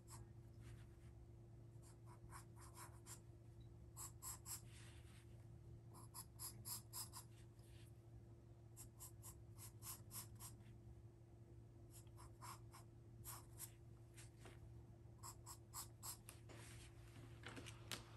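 Wooden pencil drawing on paper: runs of quick short strokes, several to a run, with pauses between the runs. A faint steady low hum sits underneath.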